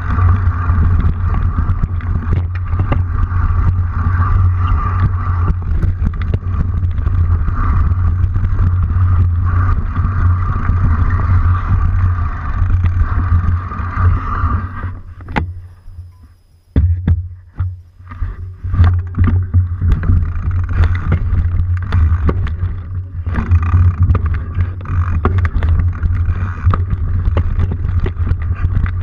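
Dirt bike engine running steadily while riding a rough dirt trail, with knocks and rattles from the ride. The engine sound drops away briefly about halfway through, then picks up again.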